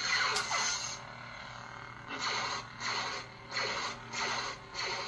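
SaberForge lightsaber's sound board playing its steady hum while the blade is swung. A falling swoosh comes at the start, then a run of about five swing swooshes from about two seconds in, each swelling and fading.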